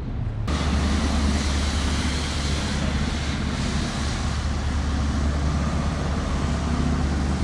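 Steady low rumble and hiss of city street traffic, coming in abruptly about half a second in.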